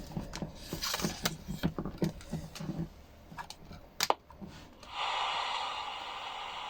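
Clicks and handling noises as the XHDATA D-219 portable radio's switches are worked, with a sharper click about four seconds in. About five seconds in, the radio's speaker comes on with a steady FM static hiss, with no station tuned.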